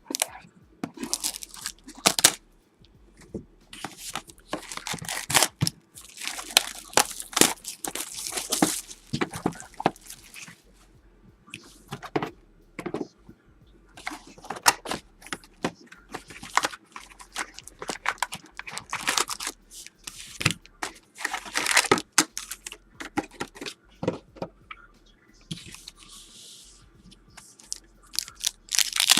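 Plastic wrap being torn off a box of trading cards and the box opened: irregular crinkling and tearing, with scattered sharp crackles.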